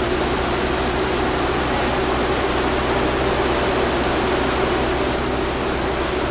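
Steady rushing hum from a passenger train of new-image economy coaches alongside the platform, with a few short, high hissing ticks in the second half.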